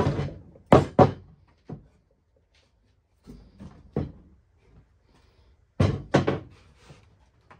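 Knocks and thunks of wooden parts as a wooden side table is taken apart and its frame lifted off: two sharp knocks about a second in, a few softer ones around four seconds, and two loud ones near six seconds.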